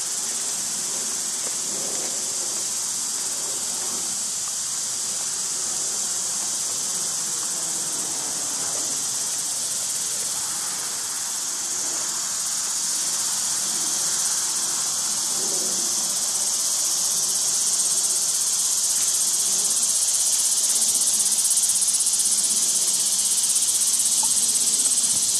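Insects shrilling in one continuous, steady, high-pitched drone that grows a little louder through the second half.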